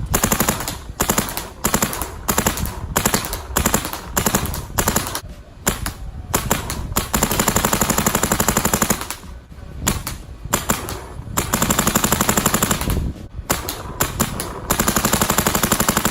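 Planet Eclipse Mini GS electronic paintball marker firing. Single shots and short strings come first, then three long, rapid strings of fire.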